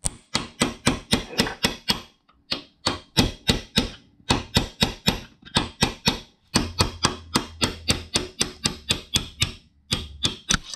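Hammer tapping a steel pin punch in quick, even strokes, about five a second, in several runs with short pauses between, driving the pivot pin out of a Bridgeport mill's quill power-feed clutch lever.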